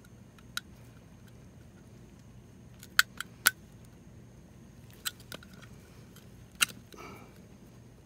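Scattered sharp clicks and taps, about seven in all, from gloved hands handling the plastic ice auger motor while packing grease around its shaft. Two loud clicks come about three seconds in and one near the end.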